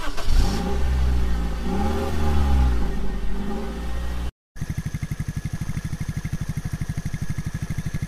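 Car engine revving up and down in pitch, then, after a short break, running steadily with a rapid pulsing beat.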